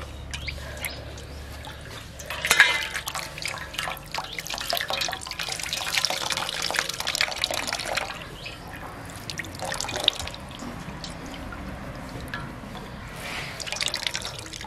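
Water splashing and dripping as freshly curdled chhana (milk curd for paneer) is rinsed with water, in a few bouts: a long one starting about two seconds in, a short one around the middle and another near the end.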